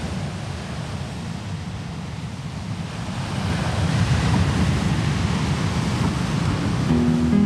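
Ocean surf: a steady rush of breaking waves and moving water that swells louder about halfway through.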